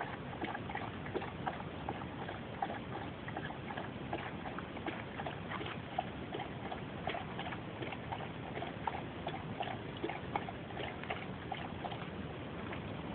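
Border collie puppy lapping water from a plastic basin: a run of irregular wet clicks, about two or three a second.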